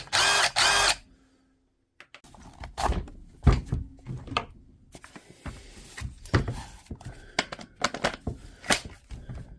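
A series of separate knocks and clicks, as of hard plastic tools and parts being handled and set down on a workbench.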